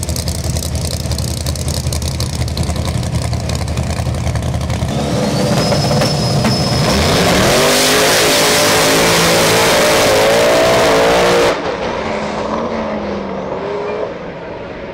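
Two small-tire drag cars at the starting line: engines rumbling on the line, then revving up with a rising high whine and launching hard into a very loud run down the track. The loud run cuts off suddenly about three-quarters of the way through, leaving fainter engine sound from the cars further away.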